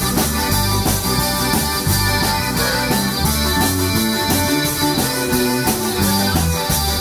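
Live zydeco band playing with a steady beat: accordion, washboard, electric bass, drum kit and electric guitar.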